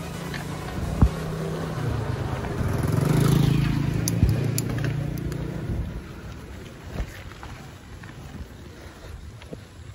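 A car's engine running close by, a low hum that swells to its loudest about three seconds in and fades away by about six seconds. Under it runs the tyre noise of a mountain bike on a rough lane, with a few sharp knocks.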